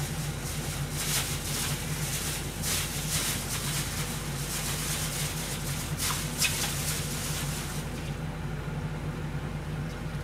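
Kitchen sounds while cooking: a steady low hum under a hiss with irregular rustling and light knocks. The hiss drops away about eight seconds in.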